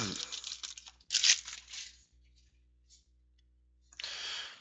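A trading-card pack being torn open, its wrapper crinkling, in three short bursts of tearing and rustling. The last burst comes near the end.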